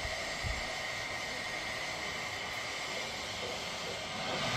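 A G-scale garden-railway train running on its track: a steady hissing rumble with a steady high whine.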